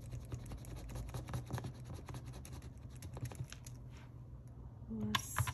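A coin scratching the foil coating off the circles of a paper scratch-off card, in a rapid, irregular run of short scrapes.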